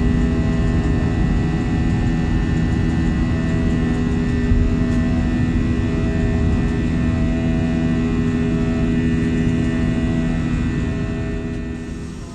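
Steady drone of an Airbus A320 airliner's engines and air systems heard from inside the cabin, with several constant hum tones over a noisy rumble; it fades out near the end.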